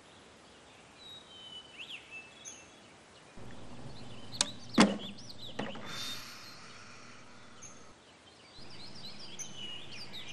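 Outdoor background with birds chirping, broken by two sharp clacks about halfway through.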